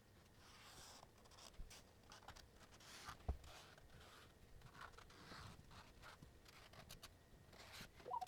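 Faint scratching of a felt-tip marker drawn in short strokes along a template's edge on plywood, with one light knock about three seconds in.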